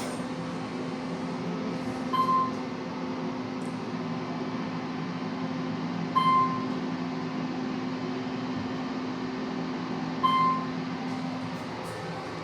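Elevator car travelling with a steady low motor hum, and a short electronic beep every four seconds or so, three times, as it passes floors. The hum fades near the end as the car slows to a stop.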